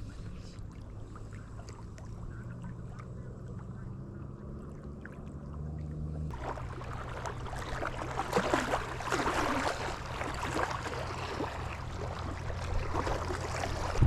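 A small boat motor running steadily with a low hum. About six seconds in, a loud rushing noise of wind and water joins it.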